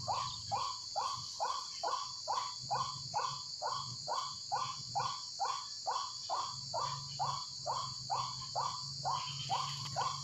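White-breasted waterhen calling, a short harsh note falling in pitch, repeated steadily about three times a second. A steady high insect chorus runs behind it.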